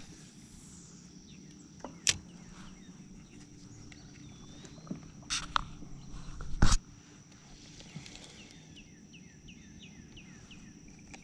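Quiet outdoor pond ambience: a steady high insect buzz and short bird chirps, with a few sharp knocks and clicks from fishing gear being handled in a kayak.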